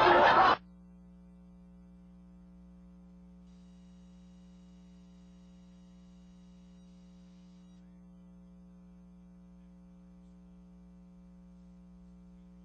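Crowd chatter cuts off suddenly about half a second in, leaving a faint, steady electrical hum.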